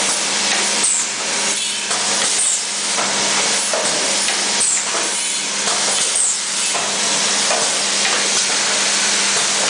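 Automatic cup filling and sealing machine running: a steady hum under a hiss of air that swells and falls in a repeating cycle about once a second as the conveyor indexes.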